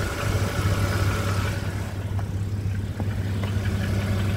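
BMW N52 inline-six idling steadily, with a tick from the top of the engine that sounds like a rod knock; the owner puts it down to the common N52 top-end tick from the hydraulic lifters, not rod knock.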